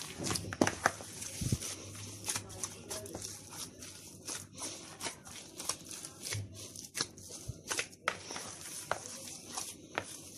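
A hand kneading a moist ground-meat köfte mixture in a plastic bowl: irregular squishing and slapping noises, several a second.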